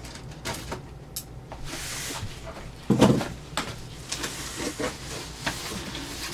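Packaging in a cardboard box being handled and rummaged through: rustling and light knocks, with one louder knock about three seconds in.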